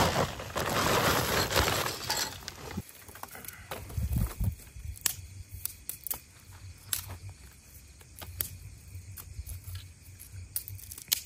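Dry firewood tipped out of its container onto the ground: a rush of rustling and clattering for about the first three seconds, then scattered sharp knocks and clicks as the pieces settle and are handled.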